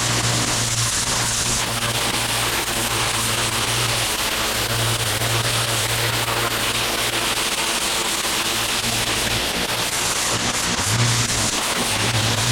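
Pressure washer running, its water jet spraying in a steady loud hiss, with a low engine or pump hum that comes and goes.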